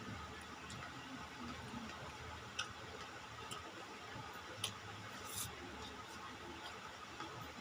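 Eating sounds: a few scattered sharp clicks and smacks from chewing and utensils, over a low steady background noise.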